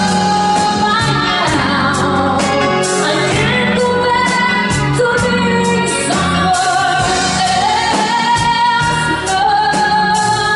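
A band playing a pop song, with a woman's lead voice singing long held notes that slide between pitches over bass and steady drum hits.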